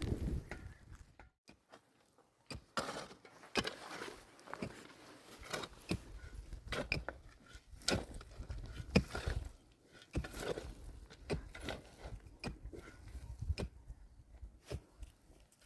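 Scattered light knocks and clicks at irregular spacing, as of hard objects being handled and set down, with a brief quiet stretch about a second in.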